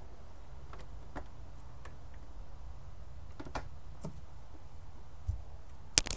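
Soft scattered knocks and clicks from handling the boat's bow hatch, ending in a sharp click about six seconds in as the flush pull latch is lifted and the fiberglass hatch lid comes open, over a low steady rumble.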